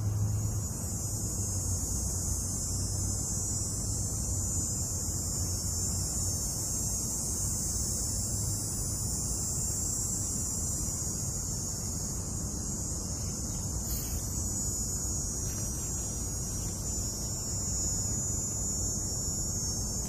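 Steady high-pitched drone of insects over a low background rumble.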